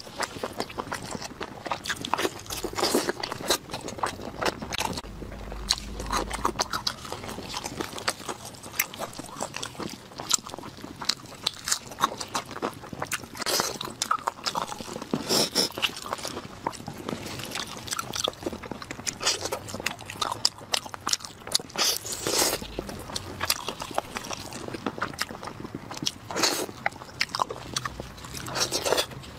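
Close-miked eating sounds: biting and chewing glazed roast meat, with crunches and wet clicks, and gloved hands tearing the meat apart.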